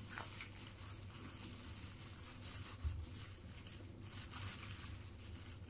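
Faint crinkling and rustling of a plastic food glove and paper food wrapper as a hand mixes and picks up rice, with small scattered clicks and one soft low knock about three seconds in.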